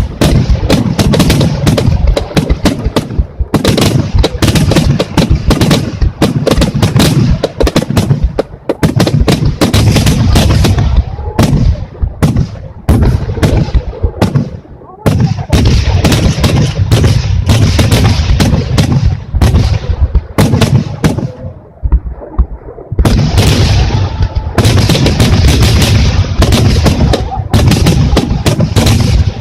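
Dense fireworks barrage: aerial shells bursting in rapid, overlapping bangs and booms with only a few brief lulls.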